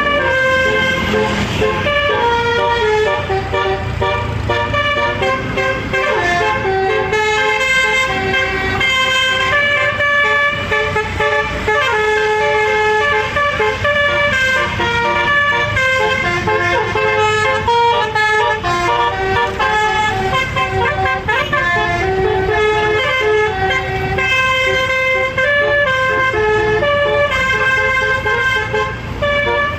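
Six-note telolet bus air horn playing a tune over and over, its notes stepping up and down in a quick melody.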